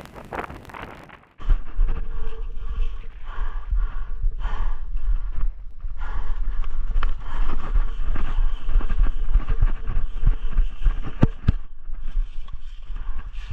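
Wind rumbling on the microphone, starting abruptly about a second and a half in, with a few sharp clicks near the end.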